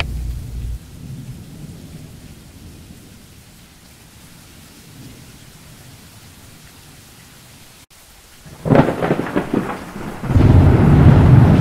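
Thunderstorm: a faint steady hiss of rain, then, about nine seconds in, a sharp crackling thunderclap followed by a heavy rolling rumble of thunder, the loudest sound here.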